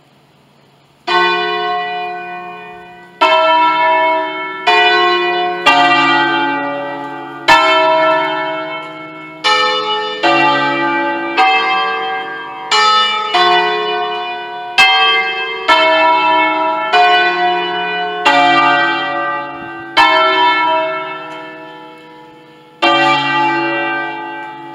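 Concerto of five church bells in D, cast by Pruneri in 1953, sounding one stroke at a time in a slow, changing melodic sequence. A stroke comes every second or two, each left to ring out and overlap the next. The ringing starts about a second in after a quiet moment.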